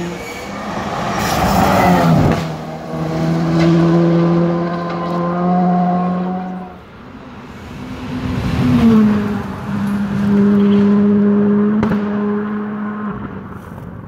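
Rally car engines running hard at high revs as the cars pass at speed, each note held steady for a few seconds and broken by sudden drops in pitch, with a rush of tyre and road noise as a car goes by about a second or two in. The sound fades toward the end.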